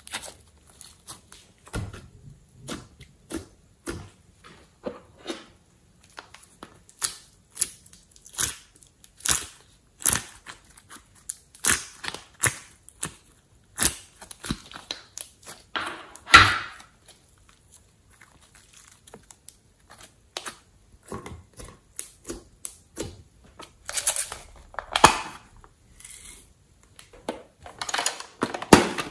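Hands squishing, pressing and pulling glossy slime: irregular sticky clicks and squelching pops, one louder pop about halfway through.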